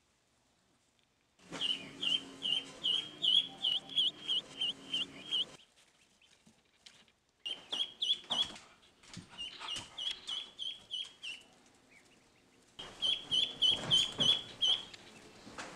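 A duckling peeping: quick, repeated high peeps, about three a second, in three runs with short pauses between.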